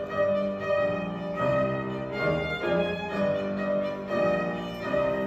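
String trio with cello playing live: sustained bowed notes that change pitch and swell in loudness about once a second, heard from the seats of a reverberant concert hall.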